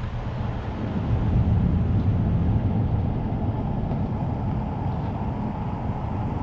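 Steady low rumble of a vehicle running, growing a little louder for a couple of seconds about a second in.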